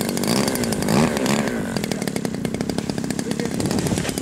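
The 50cc engine of a radio-controlled 'flying pipe' model aircraft running steadily during its takeoff roll, its pitch wavering up and down about a second in.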